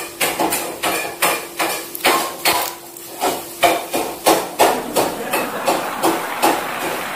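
Sharp knocks or strikes repeating about three times a second, unevenly spaced, with a slight ringing after some of them.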